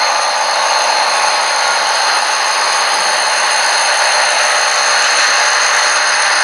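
Model Southern Railway diesel locomotives running light toward and past the camera: a loud, steady mechanical drone with a hiss and high whine, holding level throughout.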